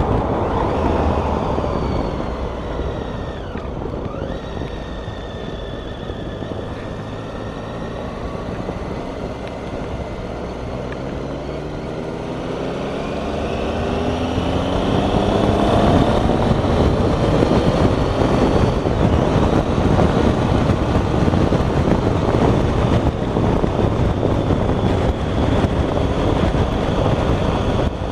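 Motorcycle being ridden, its engine note mixed with wind rush on a helmet-mounted microphone. The engine eases off and the sound drops in the first few seconds. About eleven seconds in, the engine climbs in pitch as the bike accelerates, and engine and wind stay louder from then on.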